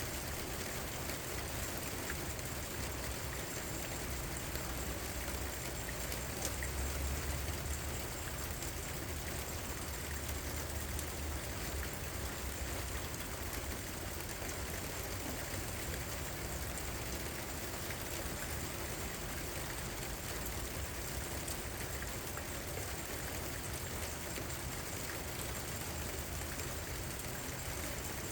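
Steady rain falling, an even hiss with scattered drop ticks. A low rumble swells briefly about seven seconds in.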